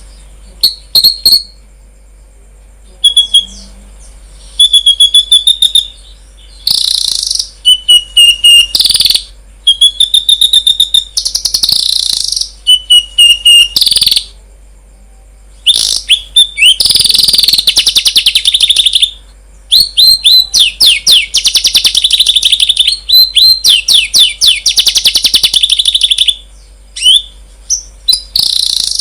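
Songbird singing: loud phrases of rapid trills and repeated high chirps, each a second or two long, broken by short pauses.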